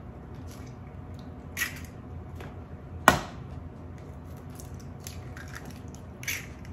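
Eggs being cracked for a meat mixture: one sharp crack about three seconds in, with a few softer taps and rustles of shell and handling.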